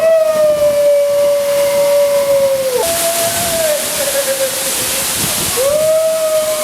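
Long drawn-out "woooo" shouts of excitement, three held calls, the first and longest about three seconds, over the steady rush of a waterfall.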